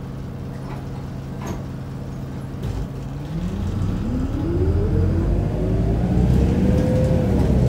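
Isuzu Erga city bus's four-cylinder diesel engine idling steadily, heard from inside the cabin. About three seconds in, it revs up with a rising pitch and grows louder as the bus pulls away.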